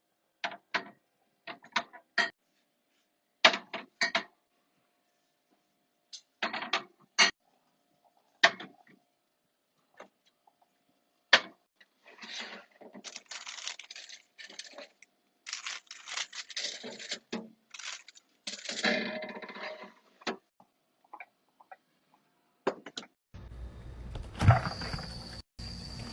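Items being handled and set down for a mini fridge restock: a string of sharp clicks and knocks, then several seconds of rustling like packaging being handled, then more light knocks. A steady hiss with a faint high whine comes in abruptly near the end.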